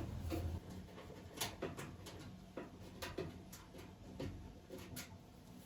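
Screwdriver turning out the T20 Torx screws of a washing machine's top bracket: a scattered series of light clicks and ticks of the bit and the metal bracket.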